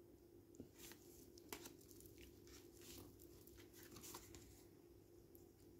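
Near silence: faint, scattered soft clicks and rustles of tarot cards being handled and turned, over a faint low steady hum.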